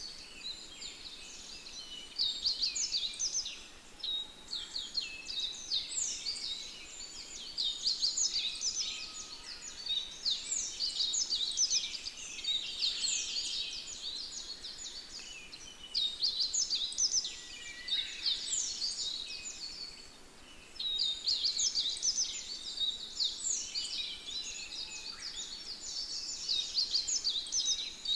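Forest chorus of dense, high-pitched chirping calls, many of them short downward-sliding chirps. The calls come in waves with short lulls between them.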